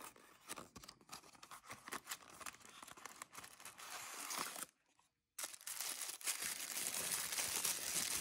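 Small cardboard gift box handled and its flap pulled open, with light scrapes and taps. After a brief gap about five seconds in, blue tissue paper crinkles and rustles steadily as it is unwrapped.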